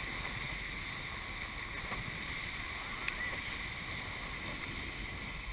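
Steady rush of water and spray along the hulls of a Hobie 21SE catamaran sailing fast through chop.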